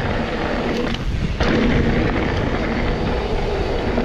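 Wind buffeting the camera microphone and mountain bike tyres rolling over a dirt trail at speed, a dense low rumble that grows louder about a second and a half in.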